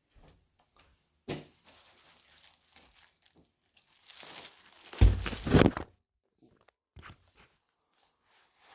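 Paper towel roll being handled and torn open by hand, with a sharp click just over a second in and a loud rip and crumple of paper around five seconds in.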